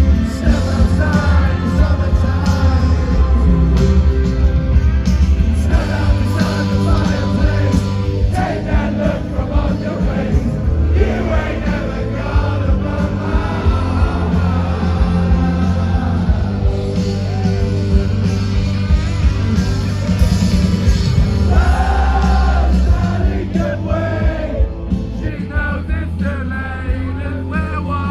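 Live rock band playing loudly, with sung vocals over a steady bass and drum beat.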